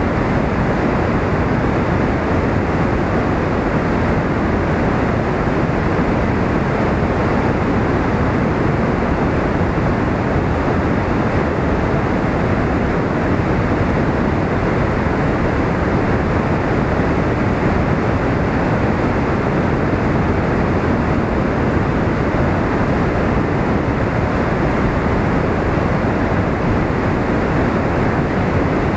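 Water pouring over a dam spillway and churning below it: a loud, unbroken rush of white water.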